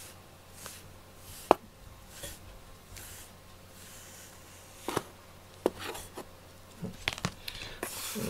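Grooming brush stroked through a cat's fur: a soft, scratchy rubbing about once a second. There is one sharp click about one and a half seconds in, and several more clicks and knocks in the second half.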